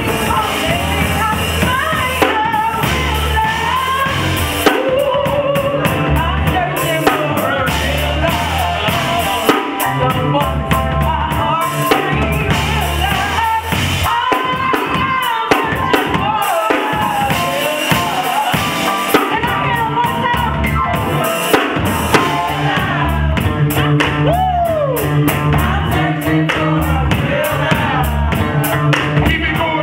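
A woman singing live into a handheld microphone over accompaniment with a drum kit and a bass line.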